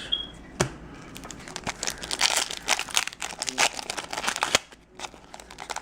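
Foil booster-pack wrapper crinkling and tearing as the pack is opened: a sharp click about half a second in, then a dense run of crackles and rustles that thins out near the end.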